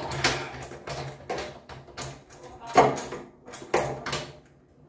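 White plastic (PVC) sink drain fitting being screwed tight by hand: a run of irregular plastic scrapes and clicks, the loudest a little under three seconds in, over a steady low hum.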